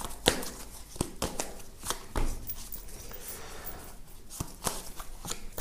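A deck of tarot cards being shuffled and handled by hand, the cards giving a series of irregular sharp clicks and flicks against each other. One card is drawn and laid down on the spread.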